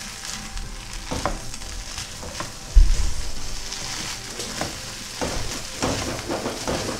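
Shredded parotta, egg and chicken sizzling in a nonstick frying pan while being stirred and scraped with a wooden spatula, with scattered scrapes and taps against the pan. A dull thump about three seconds in.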